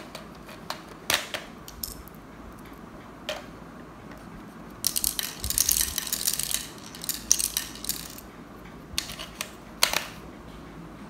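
Plastic clicks and rattling as the scope and scope mount of a toy AUG rifle are handled and adjusted: a few single clicks, with a dense run of clicking and scraping about five to eight seconds in.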